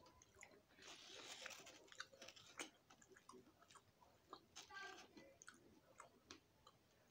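Quiet close-up chewing of food, with small wet mouth clicks and a crunchier stretch about a second in.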